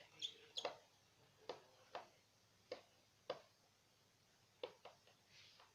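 A series of light clicks and taps at irregular intervals, about ten in all.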